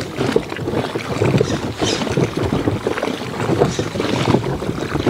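Wind buffeting the microphone, with water lapping against the hull of a small drifting boat.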